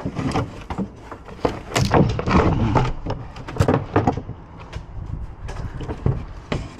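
Small junk being grabbed and dropped into a load: a run of irregular knocks, thuds and clatters, busiest around two and four seconds in.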